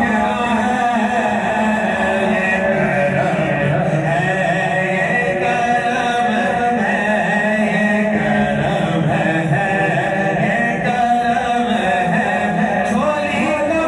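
Male voices chanting a devotional Urdu naat, a lead singer on a microphone with the seated group singing along.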